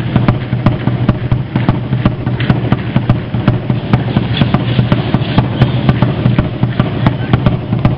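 Aztec dance drumming: a steady, fast drumbeat of sharp strikes about three a second, echoing in a large gymnasium.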